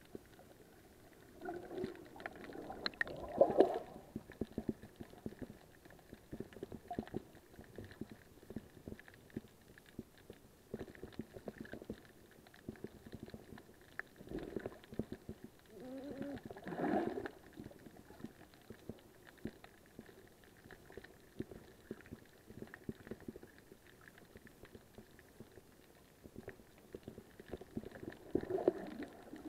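Muffled underwater sound heard through an action camera's waterproof housing: a steady scatter of small clicks, with three louder swells of gurgling water, about two seconds in, around fifteen to seventeen seconds, and near the end.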